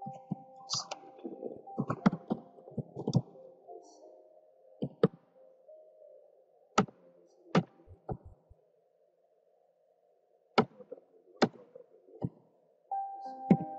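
Computer keyboard keystrokes: a quick run of typing in the first three seconds, then single key presses about a second apart.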